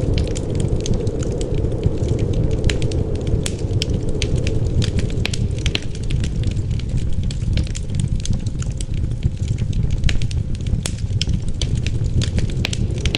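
Wood fire crackling, with frequent sharp irregular pops and snaps over a steady low rush of wind.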